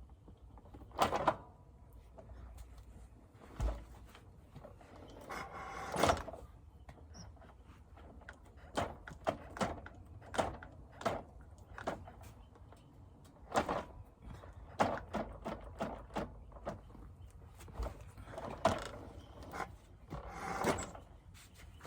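Honda XR650R single-cylinder four-stroke engine being turned over without running: a string of irregular metallic clunks and clicks. This is the seemingly extra clanking from an engine that is hard to start and hard to spin over.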